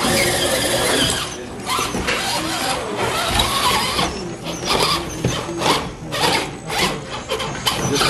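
A 1/10-scale RC rock crawler squealing and whining as it crawls over the competition course, with a run of short scrapes and knocks in the second half.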